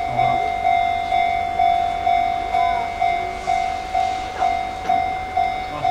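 Japanese railway level-crossing warning bell ringing: an electronic chime struck about twice a second, each strike fading before the next.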